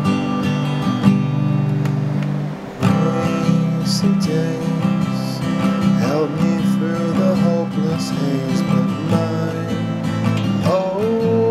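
Acoustic guitar strummed in steady chords, with a brief dip about two and a half seconds in before the strumming comes back fuller.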